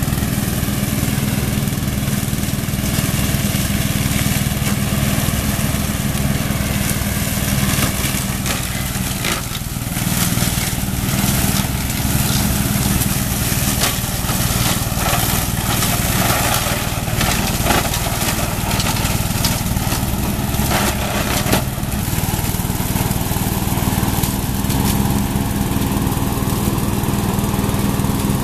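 Riding mower with a front brush cutter, its engine running steadily under load as it cuts and shreds brush and saplings. Frequent crackling and snapping of stems and branches through the middle of the stretch.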